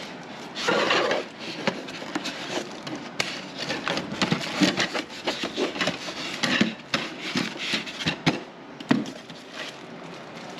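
Small spindle sander parts and their packaging being handled: an irregular run of knocks, clicks and rubbing, with a short rustle about a second in.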